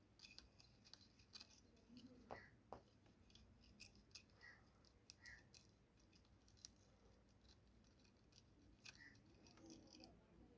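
Near silence with faint scattered ticks and scratchy clicks from desoldering on a phone circuit board: flux-coated copper wire drawn over the connector pads as a wick to lift the old solder.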